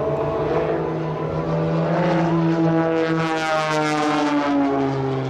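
Engines and propellers of two aerobatic planes, an Extra 300 and an MXS, flying in close formation. Their engine notes shift in pitch as the planes come through the loop, and a harsh propeller rasp swells about three seconds in.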